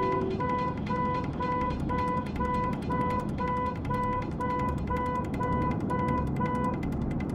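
An electronic alarm beeping at one fixed pitch, about two beeps a second, stopping near the end, over a low rumble of noise.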